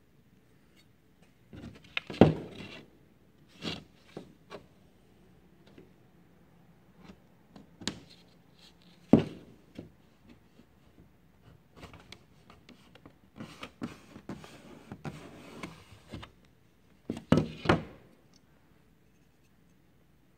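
Hand woodworking on a wooden canoe hull: scattered wooden knocks and clacks as a thin replacement plank is handled, held against the hull and laid down on it, with a few seconds of scraping and rubbing of wood about two-thirds of the way in.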